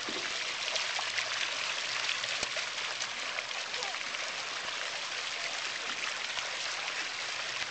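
Water from a small fountain splashing steadily into a shallow basin, a constant rushing spatter with little drips and splashes through it.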